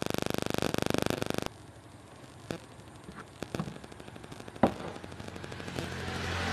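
A loud, fast, even rattle of rapid clicks that cuts off suddenly about a second and a half in. A few separate knocks and clicks follow as the metal fan-motor housing is handled and turned over, one sharper knock about four and a half seconds in. A rising noise with a low hum comes in near the end.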